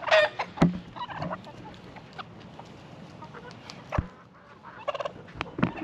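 Backyard chickens clucking and calling in short, scattered calls, with two sharp knocks: one about half a second in and a heavier thump about four seconds in.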